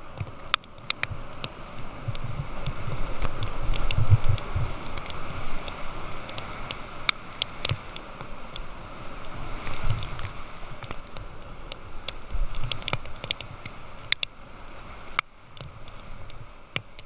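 Whitewater rapids rushing around a kayak, heard through a spray-covered action camera's waterproof housing. Low buffeting thumps and scattered sharp clicks come from water hitting the camera, loudest about four seconds in.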